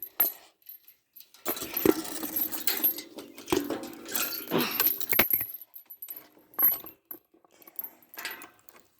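Irregular metallic clinking and rattling with scattered knocks, in several short bursts with pauses between them, like a latch, chain or keys being handled.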